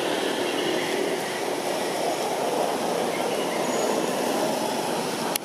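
Steady background noise with no clear rhythm or pitch, and one sharp click near the end.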